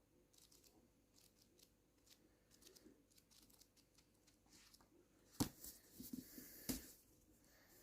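Faint rustling from handling a manga volume, with two sharp taps a little over a second apart past the middle.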